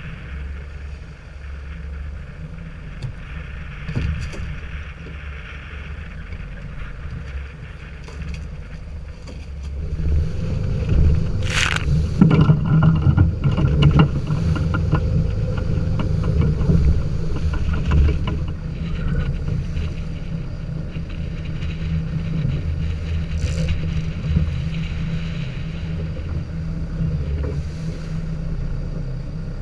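Boat motor running steadily under wind and water noise. It gets louder about ten seconds in, and a short sharp noise cuts through around then.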